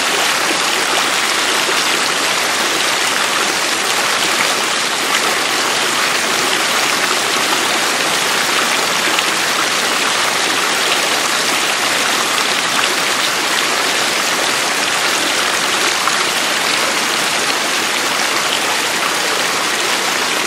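Mountain-stream water rushing steadily and evenly, with no breaks, played as a relaxing 1/f-fluctuation nature sound.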